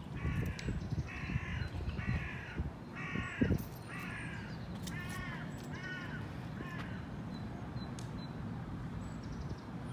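A crow cawing about eight times in a row, roughly once a second, the last caws fainter, over a low rumble. A single low thump about three and a half seconds in.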